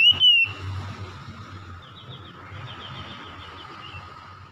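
Oriental magpie-robin singing: a loud, clear whistled note sliding down in pitch ends about half a second in, followed by a faint run of rapid chirps.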